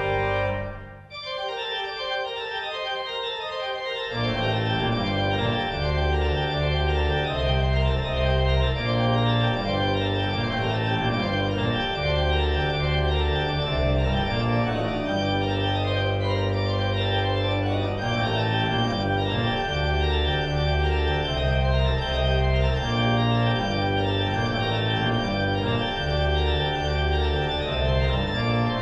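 Three-manual organ played on manuals and pedals, sustained chords throughout. After a brief drop about a second in, the manuals carry on alone, and a deep pedal bass line joins about four seconds in.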